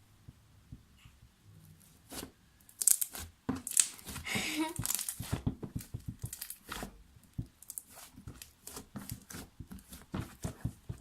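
Slime being worked by hand, stretched, folded and pressed, giving a dense run of sticky clicks and crackles, with small pops of trapped air bubbles; it starts about two seconds in.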